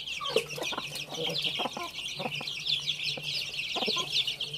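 A flock of chicks peeping in a continuous high chorus while they feed, with scattered short clucks.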